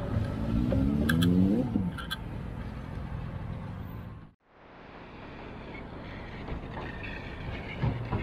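Tatra T4R tram pulling away, its electric traction motors whining up in pitch for about a second and a half, with two short sharp metallic sounds about a second apart. A little over four seconds in, the sound cuts out briefly, then steady street traffic noise follows.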